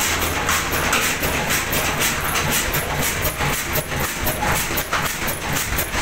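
Ruston Hornsby stationary diesel engine running steadily, with an even, rhythmic clatter of ticks from its valve gear.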